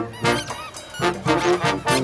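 Brass band playing a tune in short punchy horn notes over a sousaphone bass line and snare drum, with the bass coming in about a second in.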